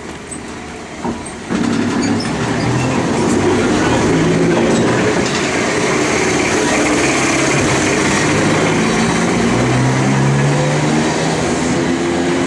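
Vintage double-deck electric tram passing close by as it pulls away. Its motors and gearing give a growl with several tones that shift in pitch over the rumble of steel wheels on the rails, and it gets much louder about a second and a half in.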